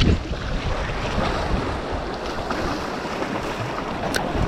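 Surf washing on the beach with wind buffeting the microphone, the wind rumble strongest at the start; a brief sharp click about four seconds in.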